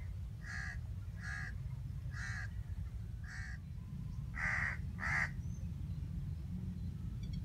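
A bird calling six times in short, separate calls, the last two louder, over a steady low rumble.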